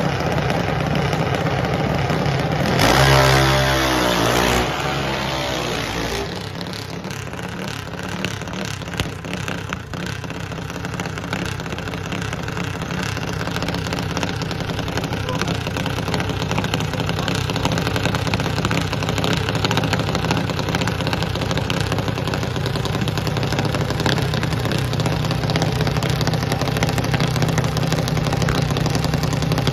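Dragster engines idling, with one engine revved hard for about two seconds, its pitch rising, a little under three seconds in. After that the engines keep running steadily.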